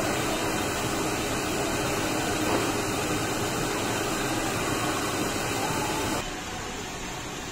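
Steady ventilation noise in a restaurant dining room, an even hiss and hum with no distinct events, dropping a little in level about six seconds in.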